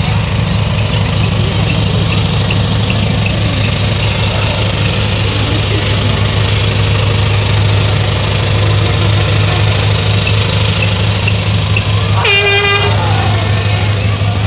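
Loud, steady low engine drone running close by, with one short horn toot about twelve seconds in.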